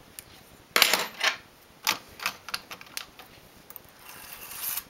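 Metal needles of a hand-operated knitting machine clicking and clattering as they are worked by hand: a quick cluster of sharp clicks about a second in, then scattered lighter clicks, and a rising rustle near the end.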